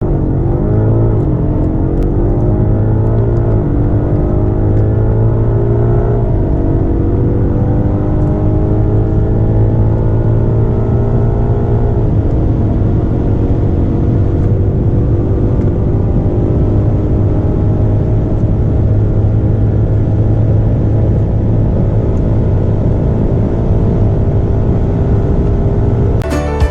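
Twin-turbo V8 of a high-performance sedan at full throttle, accelerating hard through the gears. The engine note climbs steadily and drops sharply at each upshift, about four times, with each gear lasting longer than the one before, then a long pull in a high gear.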